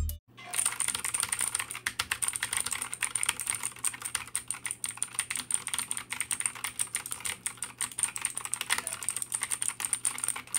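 Fantech MVP-861 mechanical keyboard with Outemu blue clicky switches being typed on rapidly, a dense continuous run of keystroke clicks.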